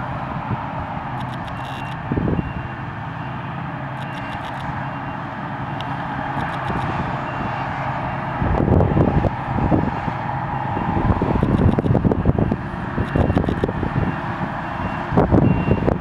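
Heavy farm machinery engine running steadily, with runs of short, faint, high repeating beeps like a reversing alarm. From about halfway, gusts of wind buffet the microphone.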